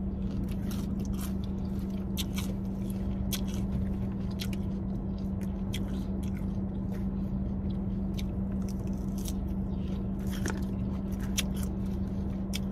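Close-up mouth sounds of chewing and biting into breaded fried Buffalo Blasts, with irregular crunches and wet clicks, over a steady low hum.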